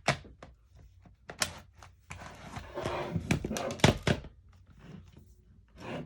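Plastic clicks, knocks and rubbing of a Dell Latitude D630 laptop being handled as its battery is slid back in and latched, with the loudest snaps about four seconds in.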